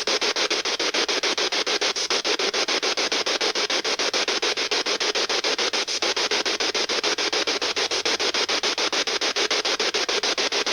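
P-SB7 spirit box sweeping through radio stations: a steady hiss of static, chopped into short even pulses many times a second.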